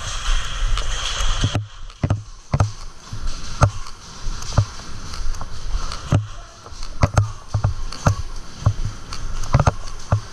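Footsteps of a player walking or jogging in airsoft gear, heavy footfalls about one to two a second with gear clattering on each step. A hiss runs for about the first second and a half, then cuts off suddenly.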